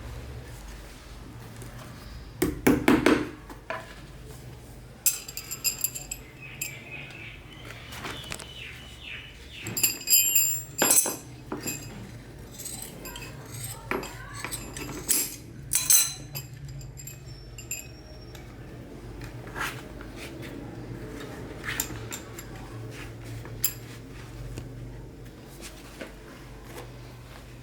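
Irregular metallic clinks and knocks of hand tools and metal pieces being handled, some ringing briefly, over a steady low hum.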